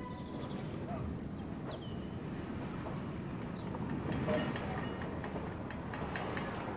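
Outdoor ambience: a steady low background rumble with a few short bird chirps, and a scatter of short sharp ticks in the last couple of seconds.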